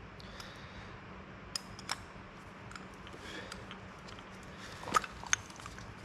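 Small metal clicks and taps of brake pads and pins being worked into a brake caliper by hand, a few scattered clicks with the sharpest about five seconds in, over a faint steady hum.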